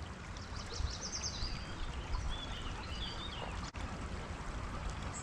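Creek water running steadily, with small birds chirping a few times over it.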